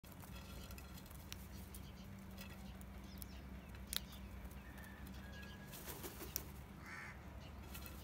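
House crows feeding at a clay dish of grain: faint beak pecks and wing flaps, with a few sharp clicks, the loudest about four seconds in, and a couple of faint short bird calls, over a low steady hum.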